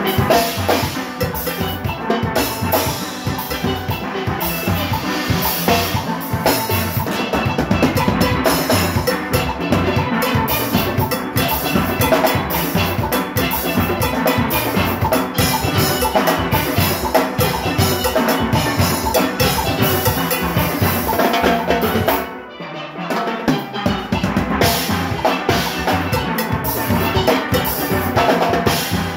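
Steelband playing a fast, driving tune: steel pans carry the melody over the engine room's drum kit and percussion. About two-thirds of the way through, the drums and bass pans drop out for about a second before the full band comes back in.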